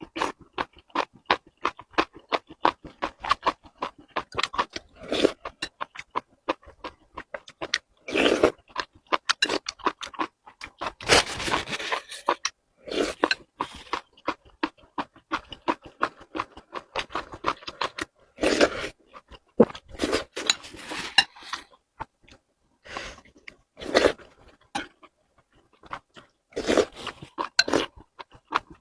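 Close-miked eating sounds: rapid wet chewing and smacking with crunches, broken by a few louder, longer noisy bursts.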